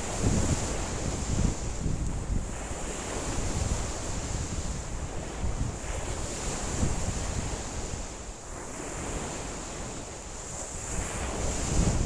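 Lake waves washing onto the shore while strong wind gusts across the microphone, the low wind rumble easing off for a few seconds past the middle and picking up again near the end.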